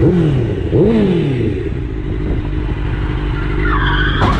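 Sport motorcycle engine revving twice in quick succession, the pitch rising and falling each time, then running steadily. Near the end a siren starts wailing.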